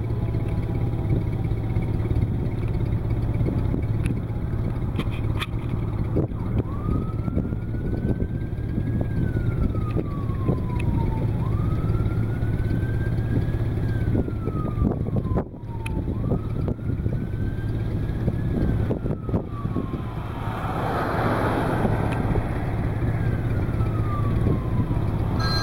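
A siren wailing, rising and falling in pitch four times, about five seconds per cycle, starting about six seconds in. Under it is a steady low rumble of storm wind on the microphone, with a few sharp handling clicks.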